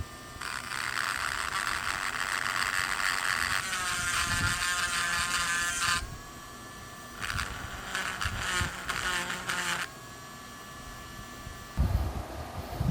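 Dremel rotary tool with an abrasive attachment grinding the casting of a small bench vise. Its high whine runs throughout. Harsh grinding lasts for about five seconds, the tool runs free for a moment, then several short grinding passes follow.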